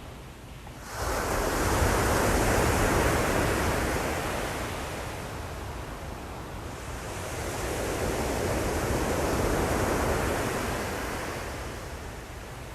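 Ocean surf: a wave breaks suddenly about a second in and its wash rises and slowly fades, then a second swell of surf builds and dies away near the end.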